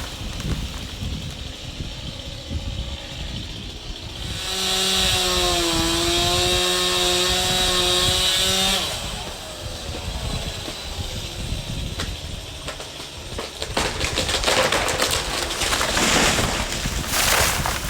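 Chainsaw run at full throttle for about four seconds, its pitch sagging slightly midway as it loads in a cut, then dropping back. Later there are a couple of loud noisy bursts.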